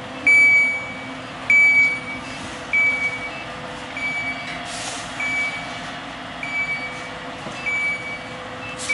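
Gas-failure alarm on a BTU hydrogen belt furnace beeping, a high tone about once every 1.2 seconds, signalling that the hydrogen and nitrogen supplies have failed. The first few beeps are loudest, and a steady low hum runs underneath.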